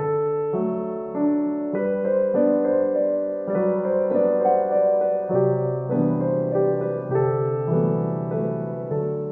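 Background music: a piano or electric piano playing a slow run of sustained chords.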